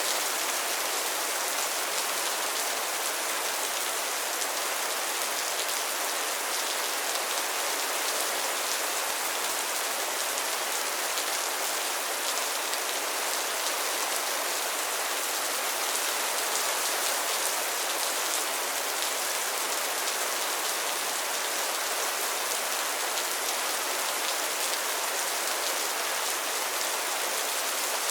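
Steady rain falling on a pond and its lily pads, a dense even hiss of many small drops.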